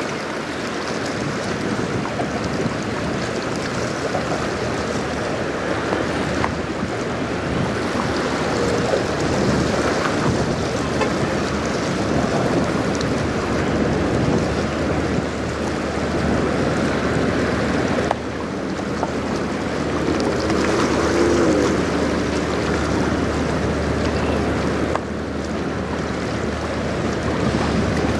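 Wind noise on the microphone over the wash of choppy river water, with a low steady hum beneath from a passing lake freighter's engine. The hum grows stronger in the second half.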